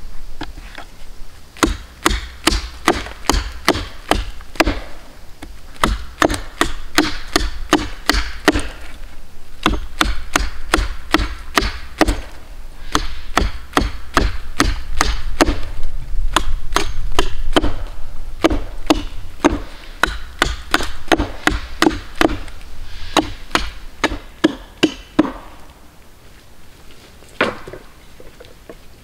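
Small hatchet chopping a point onto a wooden stake held upright against a log: a long, steady run of sharp wooden strikes, about three a second, that stops near the end.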